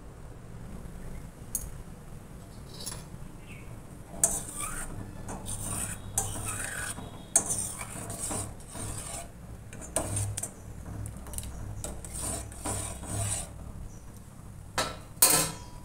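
A metal spoon stirring milk in a stainless-steel pan on the stove, scraping around the bottom and sides in repeated strokes that start about four seconds in. A sharp clink of metal on the pan comes near the end.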